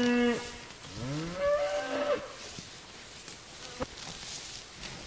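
Cattle mooing: the end of one moo, then a second moo lasting about a second whose pitch rises and then falls.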